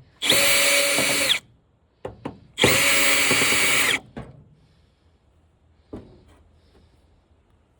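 Power drill running twice, about a second each time, each run spinning up quickly, as it backs screws out of a flat-screen TV's casing. A few light clicks follow.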